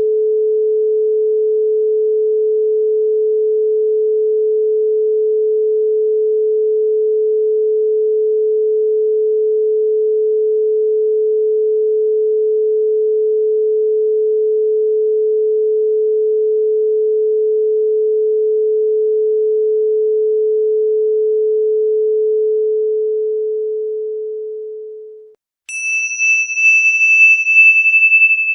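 A steady pure sine tone at about 432 Hz, held unchanged for over twenty seconds, then fading away. Near the end a higher pure tone starts abruptly in its place.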